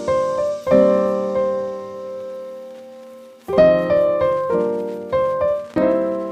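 Background piano music: chords struck every half second or so, each ringing and fading, with a longer held chord near the middle.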